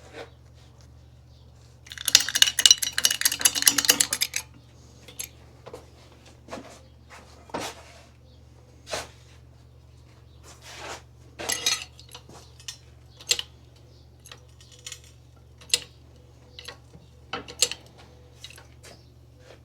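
Metal tools clinking and tapping while a new wheel bearing is pressed into place, with a dense run of rapid metallic clicks for about two seconds starting two seconds in, then scattered single clinks and knocks.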